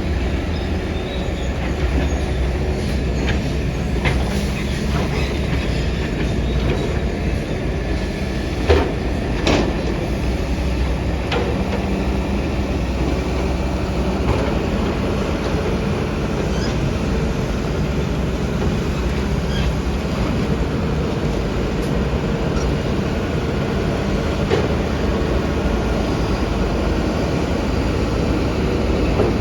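Excavator's diesel engine running steadily under load, with scattered metallic clanks and knocks. The loudest knock comes about nine seconds in.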